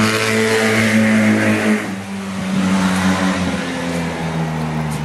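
A motor engine running loudly, its pitch shifting about two seconds in.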